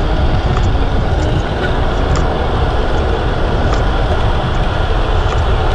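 Wind rumbling over the microphone of a rider on a moving bicycle: a loud steady low rush, with a few faint light ticks now and then.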